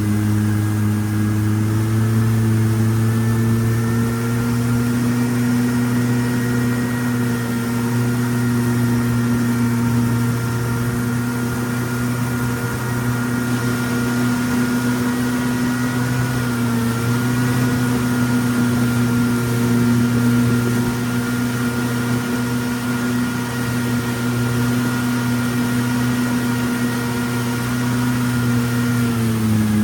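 Boat engine running steadily at a constant speed, its pitch dipping slightly and recovering near the end.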